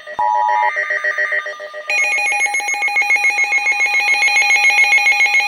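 Several weather radios sounding their alert alarms at once: overlapping electronic beeps and tones. About two seconds in they build into a loud, rapid pulsing warble.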